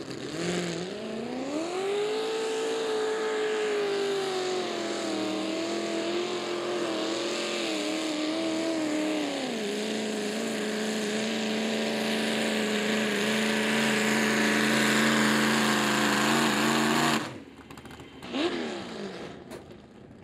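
Naturally aspirated mini rod pulling tractor's engine at full throttle under load on a pull, rising in pitch about a second in and holding high, then dropping to a lower steady note about halfway through. It cuts off sharply about seventeen seconds in, followed by one brief falling rev.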